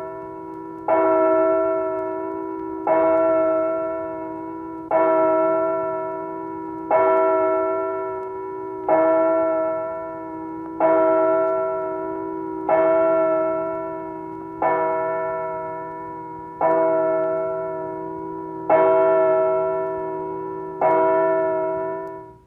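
A single church bell tolling, struck about every two seconds on the same note, each stroke ringing on and fading until the next. The ringing cuts off suddenly at the very end.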